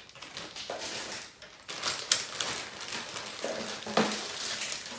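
Plastic parts bags rustling and crinkling as they are sorted through, with a few sharp knocks, the loudest about two seconds in.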